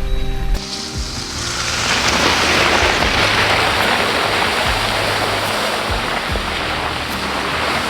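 Background music with a steady rushing hiss over it, which swells in during the first two seconds and then holds.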